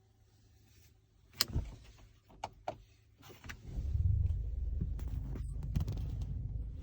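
A few clicks and knocks inside the car, then the Mercedes-AMG GT 53's turbocharged inline-six with EQ Boost starts up about four seconds in. It flares briefly and settles into a low, steady idle.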